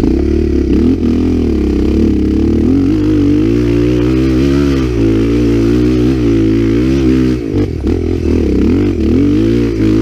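Dirt bike engine revving hard under load on a steep dirt hill climb, its pitch rising and falling over and over with the throttle. The engine note drops out briefly about seven and a half seconds in, then picks up again.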